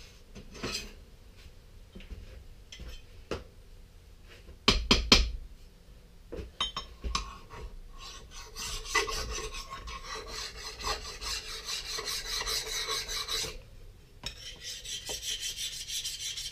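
Knocks and clatter of tools being handled, loudest about five seconds in, then a hand file rasping steadily along a freshly heat-treated steel knife blade from about eight seconds in, with a short break near the end. The file is being run over the hardened blade to check its hardness.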